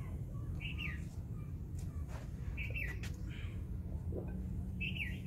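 A small bird chirping three times, each call short and bending in pitch, over a low steady hum, with a few faint light clicks.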